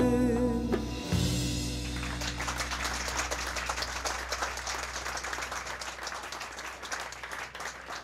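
A woman's held sung note and the string band's final chord end about a second in. Audience applause follows and gradually fades away.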